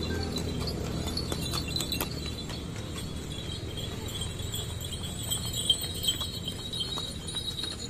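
Small bells jingling, with scattered sharp clicks, over a low rumble that fades away.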